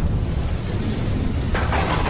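Thunder in a rainstorm: a deep, steady rumble, then a sudden crackling thunderclap breaks in about one and a half seconds in.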